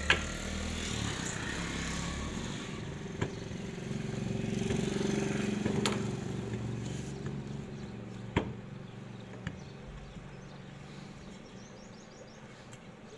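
Sharp clicks and knocks of ceiling-fan motor parts being handled and fitted together, about five in all. Under them runs a steady engine hum that swells around the middle and then fades away, as of a passing vehicle.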